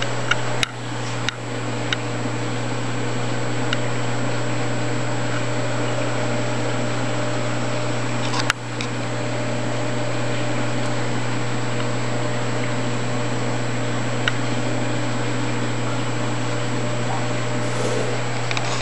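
Steady electric hum of running aquarium equipment such as the pumps on a reef tank, with a low constant drone and a faint high whine. A few short clicks of handling come early and about halfway through.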